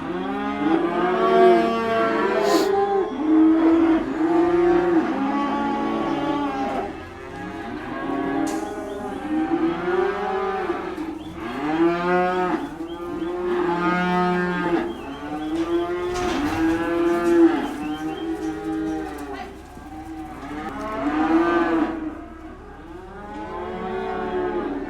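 Many penned cattle mooing and bawling over one another, a near-continuous chorus of overlapping calls with no break.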